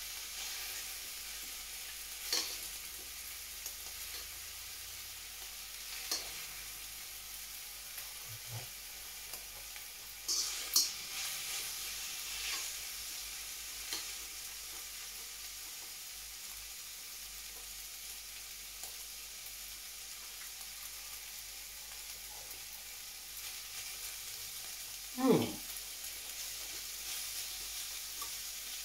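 Stir-fry sizzling steadily in a steel wok as it is stirred with metal chopsticks, with scattered clicks and scrapes of the utensils against the wok and one louder knock about 25 seconds in.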